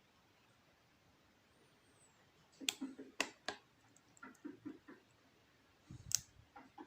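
Sharp metallic clicks from picking an Ahrens Euro cylinder lock, pick and tension tool working the pins, starting about two and a half seconds in, with a louder knock about six seconds in.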